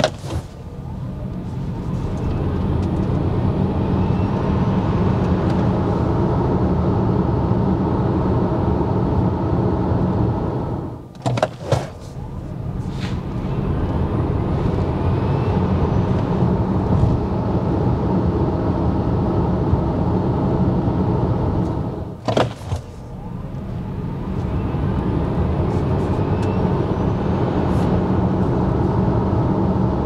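Cabin noise of a Nio EL6 electric SUV accelerating hard from a standstill: tyre and road rumble builds quickly, with a faint rising electric-motor whine. It drops away twice, about 11 and 22 seconds in, with a few sharp clicks, then builds up again for another run.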